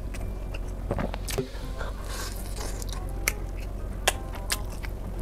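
Gloved hand picking up sticky, sauce-glazed fried chicken, close to a clip-on mic: wet squishes of the sauce and several sharp clicks, with chewing from a full mouth, over a steady low hum.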